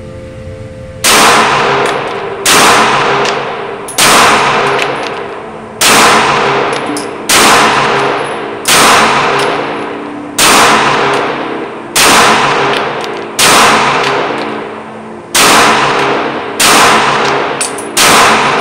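CZ P10C striker-fired pistol fired twelve times in slow aimed fire, about one shot every one and a half seconds, starting about a second in. Each shot is a sharp crack with a long echoing tail from the indoor range.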